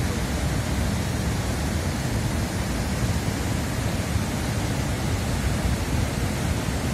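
Floodwater rushing past in a loud, steady torrent with a deep rumble.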